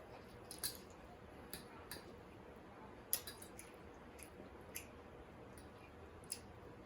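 Close-miked eating: scattered soft, wet clicks and smacks of a mouth chewing beef short ribs, the sharpest about three seconds in.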